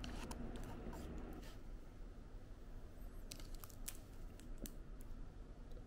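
A plastic spoon scraping cake from inside an aluminium can, then the can being handled: scattered sharp clicks and light taps.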